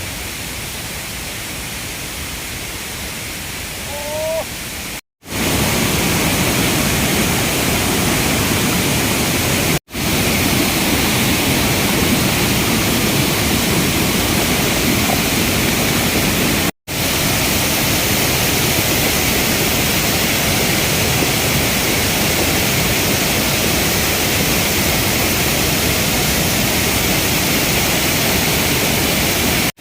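Waterfall pouring: a steady, loud rush of falling water, broken off for a moment three times and louder after about five seconds.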